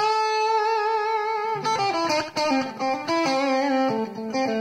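Electric guitar lick played on string bends: one sustained bent note with wide vibrato for about a second and a half, then a run of notes stepping downward, ending on a held lower note with vibrato.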